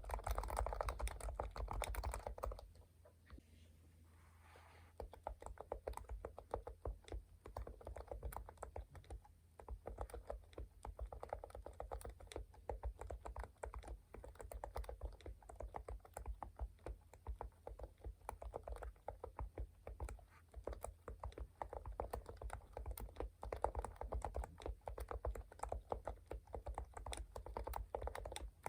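Typing on a Topre electrostatic-capacitive keyboard whose keycaps are weighted with lead tape. Quick typing stops after about two seconds, and after a short pause the keys are pressed slowly, one at a time.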